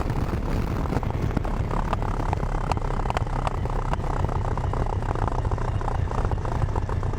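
Motorcycle on the move: a steady low engine sound mixed with wind noise across the microphone, with scattered small ticks.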